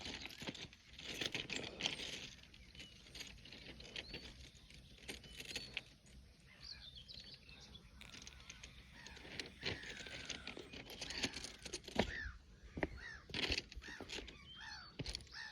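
Birds calling, with many short curved chirps and whistles that come thicker in the second half. Scattered sharp clicks and knocks sound now and then over a faint steady hiss.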